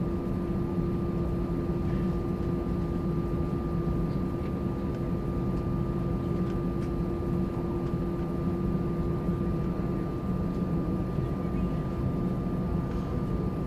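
Airbus A320-200 jet engines running steadily: an even drone with a few held tones and no rise or fall in pitch or level.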